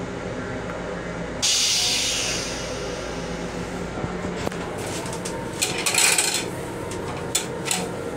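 Steady rumble and hum of a Long Island Rail Road M7 electric railcar, heard from inside its small restroom. About a second and a half in, a sudden hiss starts and fades over a second or two. A few sharp clicks and knocks come around six seconds in and shortly after.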